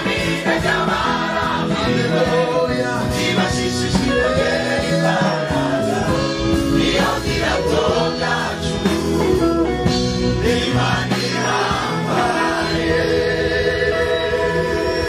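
Gospel choir singing with instrumental backing and a steady beat.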